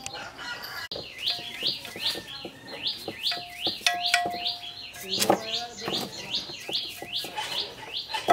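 A bird chirping rapidly and repeatedly, about two to three short chirps a second, with scattered clicks and knocks.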